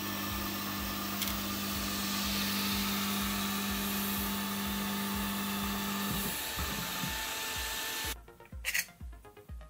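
Background music with a steady beat over the steady whir of a FLSUN delta 3D printer running. A steady hum in the machine noise stops about six seconds in, and the machine noise cuts off suddenly about eight seconds in.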